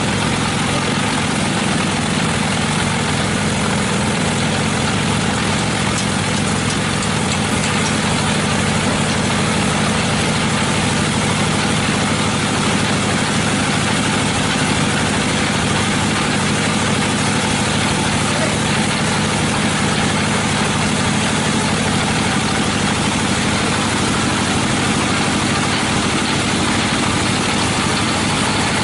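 Sawmill machinery running: an engine-driven saw runs steadily at a constant pitch, with a low engine hum under a broad steady rush.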